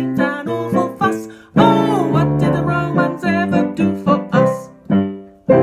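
A voice singing a children's song to piano accompaniment, closing the chorus, with a final chord struck sharply near the end.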